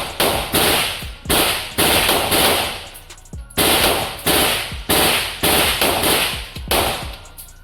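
Rapid string of gunshots, about two a second, each ringing out briefly.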